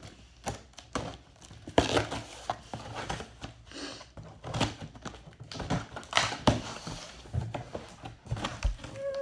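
Cardboard shipping box being opened and rummaged through: rustling and crinkling of cardboard and paper, with scattered knocks and thumps as the books inside are moved.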